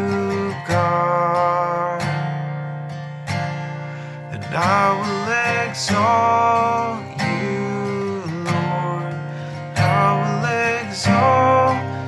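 Strummed acoustic guitar with a man singing a slow worship song, in phrases that swell and fade.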